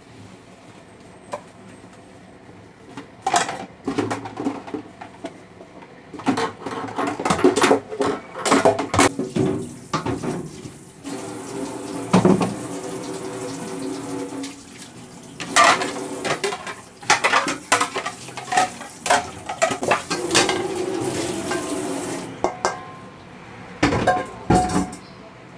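Dishes washed by hand at a kitchen sink: ceramic plates, bowls and metal pots clinking and clattering against each other, with the tap running in stretches of a few seconds.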